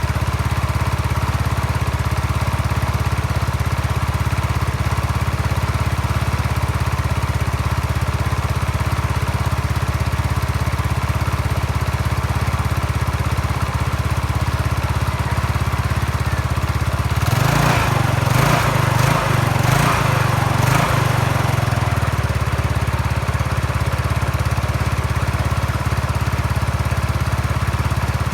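Yamaha Mio Sporty scooter's small single-cylinder engine idling steadily, with several quick, louder surges about two-thirds of the way through before it settles back to idle.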